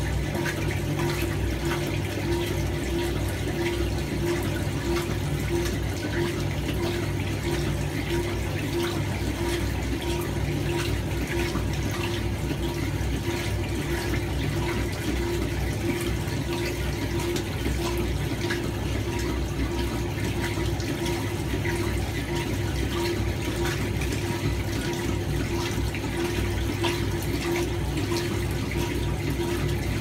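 1976 Hoover 620 top-loading washer agitating a load: water and clothes sloshing in the tub over a steady motor and drive hum with a faint regular pulse.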